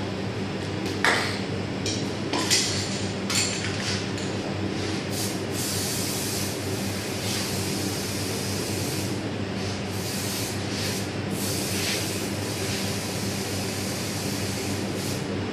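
Steady hum of kitchen machinery, with three short knocks in the first few seconds and then repeated bursts of hissing, each lasting a second or so.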